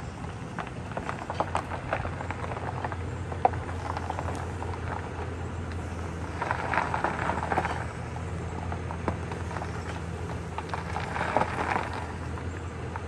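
Chevy Silverado pickup engine running at a steady low idle as the truck creeps over gravel, with crunching from the tyres on the gravel twice, about six and eleven seconds in, and scattered small clicks.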